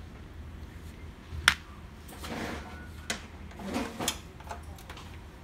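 A screwdriver working at a laser printer's plastic rear cover: a sharp click about one and a half seconds in, then two stretches of scraping with a few more clicks.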